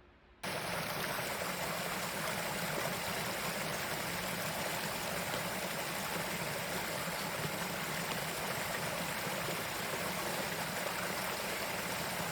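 Mountain valley stream, swollen after heavy rain, rushing and splashing steadily over rocks; it starts abruptly about half a second in.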